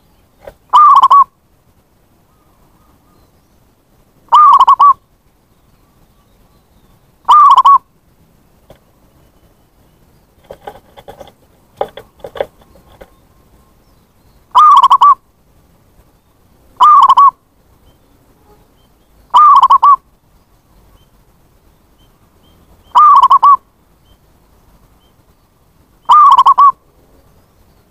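Zebra dove (perkutut) cooing call, a short burst of about half a second repeated eight times at uneven intervals, loud enough to reach full scale. In the longer gap midway come a few faint clicks.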